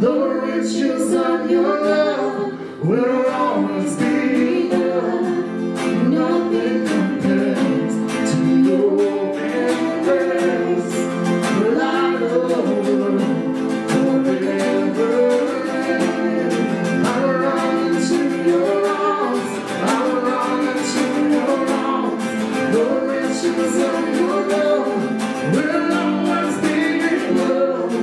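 A worship song sung with guitar accompaniment, the voice carrying a flowing melody over steady strumming.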